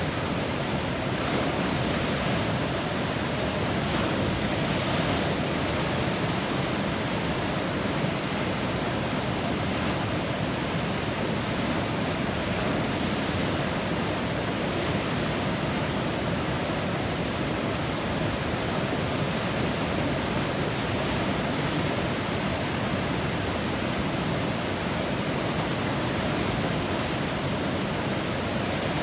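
Whitewater river rapids rushing steadily, an unbroken wash of churning water.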